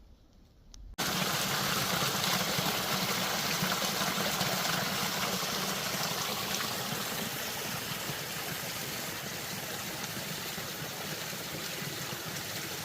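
Running mountain water, a steady flowing rush that starts abruptly about a second in after near silence.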